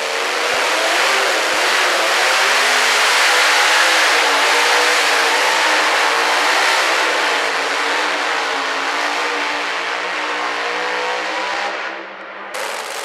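Supercharged engine of a modified pulling pickup running at full throttle as it drags the weight sled down the track, its pitch wavering. The sound drops sharply near the end.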